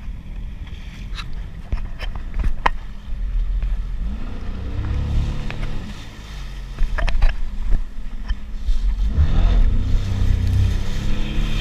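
Sea-Doo personal watercraft engine revving up and easing off, once about four seconds in and again from about nine seconds, over a steady low rumble, with a few sharp knocks in between.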